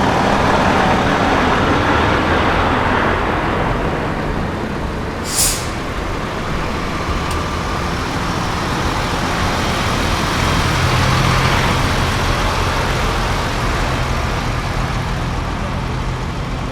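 Heavy truck diesel engines running, with a short, sharp burst of hissing air about five seconds in.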